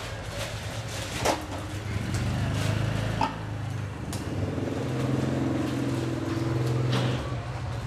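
A motor vehicle engine hums steadily from about two seconds in until near the end, with a few sharp metal clinks of tongs and a serving spoon against stainless steel food trays.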